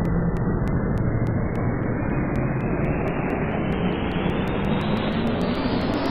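An exaggerated, edited cartoon sneeze sound effect, the blast stretched into a loud, continuous rushing rumble. It grows steadily brighter, with a faint tone rising in pitch beneath it.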